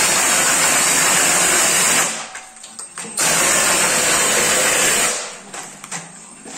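Air-powered plaster hopper gun with four nozzles blasting compressed air and sprayed plaster onto a wall in two loud hissing bursts of about two seconds each, with a short gap between them.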